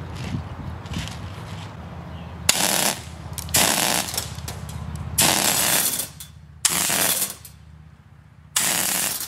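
Homemade compressed-air BB machine gun, a soda-bottle hopper feeding 6 mm airsoft pellets into a brake-line barrel with an air-compressor blowgun as trigger, firing in short bursts. Each burst is a loud rush of air lasting about half a second to a second. There are five strong bursts from a few seconds in, after a few faint short ones.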